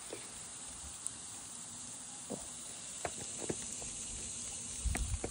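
Water running from an outdoor standpipe tap into a garden hose, a steady hiss, with water spraying from the leaky hose coupling at the tap. A few faint knocks, and a low rumble near the end.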